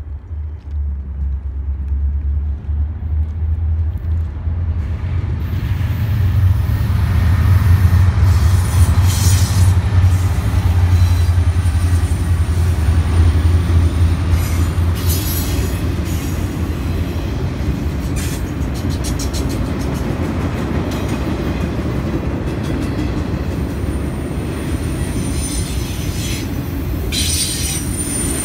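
Norfolk Southern diesel freight locomotives approaching and passing close with a deep, rising engine rumble, followed by a long train of autorack cars rolling by. The wheels click steadily over the rail joints, and a high wheel squeal comes in near the end.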